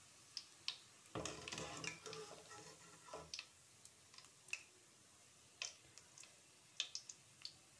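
Faint sharp ticks and pops, spaced irregularly, from a kadai of hot frying oil and a metal slotted skimmer working in it. A soft rustling stretch runs from about one to three and a half seconds in as the skimmer lifts fried bhujia out of the oil.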